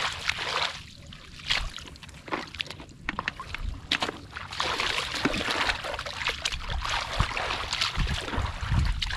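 Shallow rice-field water splashing and sloshing as someone wades and grabs for fish by hand. A run of short splashes, thinner for a few seconds about a second in and busier from about four seconds on.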